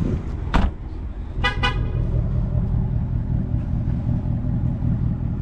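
Ford Mustang idling with a steady low rumble, a sharp knock just after the start, then two quick short car-horn toots about a second and a half in.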